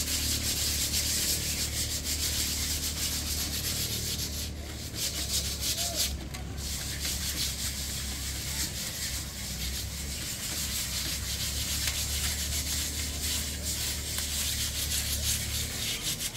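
Several hand tools scraping and scrubbing old paint off an elephant statue, a continuous rasping of many quick overlapping strokes, as the surface is stripped for repainting.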